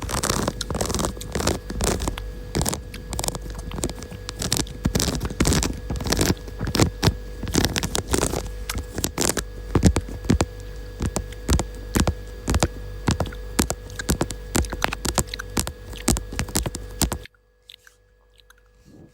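Close-miked ASMR trigger sounds: a dense, irregular run of sharp clicks and crackles over a faint steady hum, cutting off abruptly near the end.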